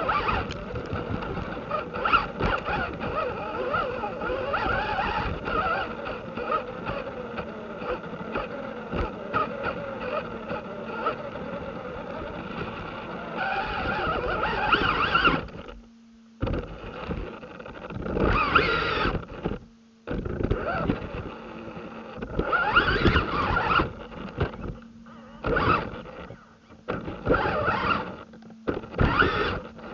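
Losi Rock Rey RC truck driving: its electric motor and gears whine as the tyres scrabble over the ground, at first continuously and then in short stop-start bursts as the throttle comes on and off. A faint steady hum sits under the quiet gaps.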